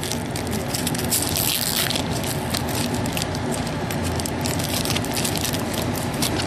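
Trading-card pack wrapper being torn open and crinkled, with many quick crackles, thickest in the first couple of seconds, over a steady low background rumble.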